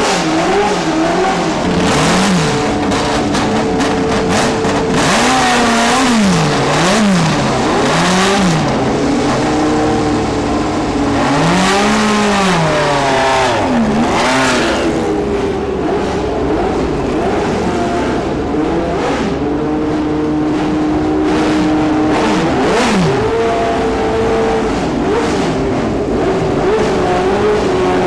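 Historic Formula 1 race car engines running at high revs, several cars overlapping, their pitch repeatedly climbing and dropping.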